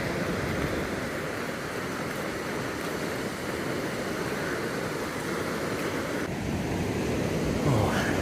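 Rough surf washing onto the beach, a steady rush of breaking waves, with a brief rising whine near the end.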